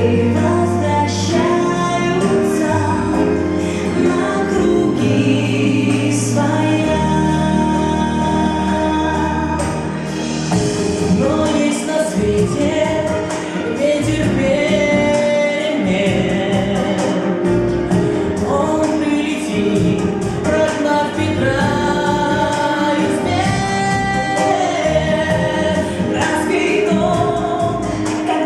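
Recorded song with group singing over an instrumental backing with a prominent bass line.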